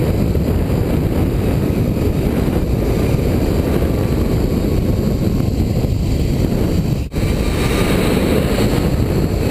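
Loud, steady rush of wind buffeting a body-worn camera's microphone during a fast zip-line ride, a deep rumble with a brief drop about seven seconds in.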